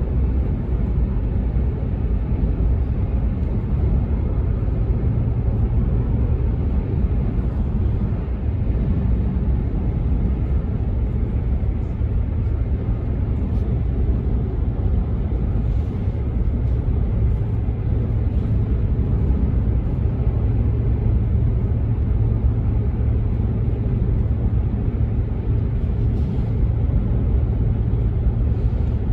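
Steady low rumble of tyre and road noise inside a moving car's cabin at speed.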